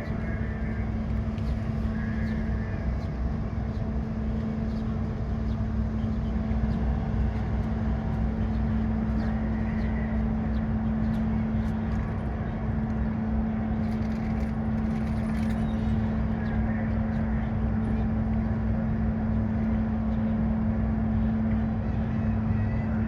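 Ferry's engines and machinery giving a steady low drone with a constant hum, heard from on board as the ship manoeuvres out of port.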